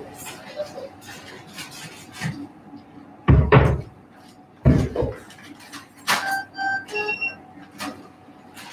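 Handling noise from a camera microphone rubbing and bumping against a surgical drape, with two heavier thumps around three and a half and five seconds in. This is followed by a short run of electronic beeps at several pitches between six and seven seconds in.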